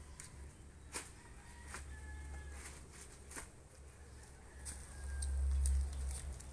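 Scattered clicks and rustles as hands work among debris and plastic sheeting on the ground, over a low rumble that swells about five seconds in. A few short, faint bird-like calls sound in the background.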